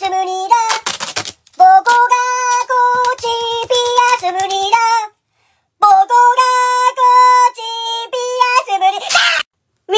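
A high-pitched, childlike singing voice holding a melody of short sustained notes, stopping briefly twice. A brief burst of noise comes near the end.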